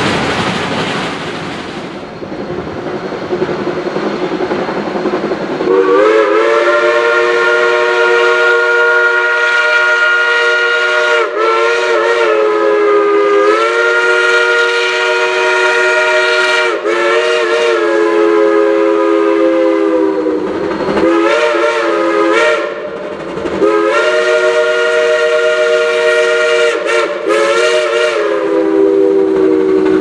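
A train rolling along the track at first, then from about six seconds in a Shay geared steam locomotive's chime whistle blows a chord of several notes in long blasts. Each blast dips and wavers in pitch where it breaks off and starts again.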